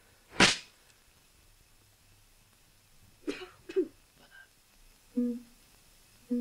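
A single sharp, loud burst, then two short gasps a few seconds later, followed by two low plucked-string notes as the film's music begins.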